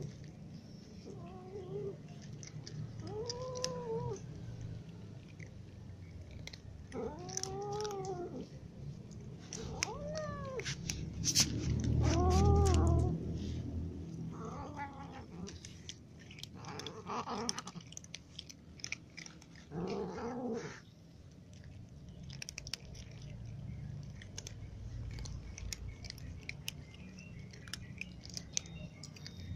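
Cats meowing again and again, about eight short calls that rise and fall in pitch, the loudest about halfway through, over the crisp crunching of dry kibble being chewed.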